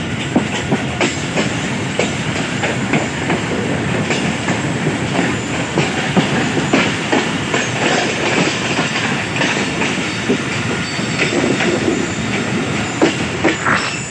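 Passenger train running, heard from aboard a coach: wheels clattering over rail joints, with a steady rumble and many irregular clicks and knocks.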